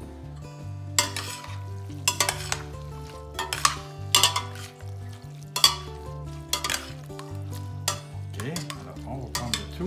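Serving spoon and fork tossing drained spaghetti through tomato sauce with mussels and shrimp in a stainless steel pot: a string of irregular wet stirring strokes, roughly one a second, with the utensils scraping the pot.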